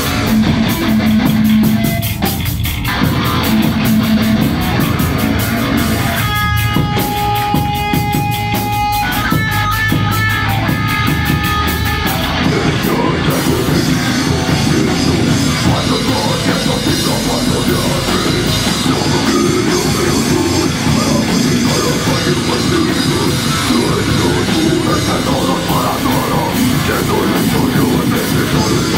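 Slamming death metal band playing live: heavily distorted guitar and bass over fast, pounding drums and cymbals.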